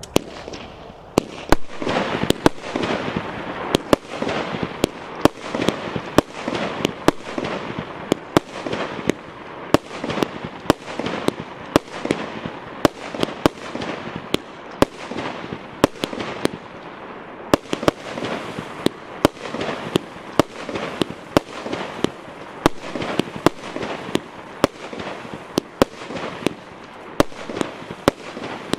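A 49-shot, 30 mm consumer fireworks battery (Piromax PXB3625 'Pegasus' cake) firing its shots in a steady run: sharp bangs about two a second, with a continuous crackle between them.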